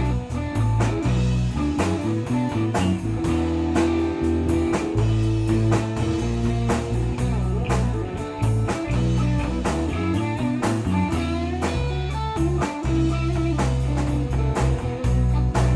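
Rock band playing: electric guitars over a bass guitar line, with a drum kit keeping a steady beat of frequent drum and cymbal hits.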